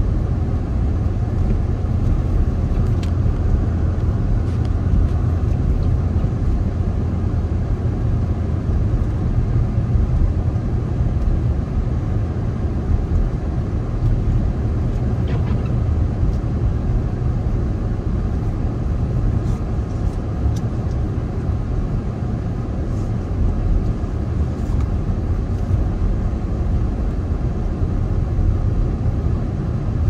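Steady low rumble of a car driving along, with road and tyre noise.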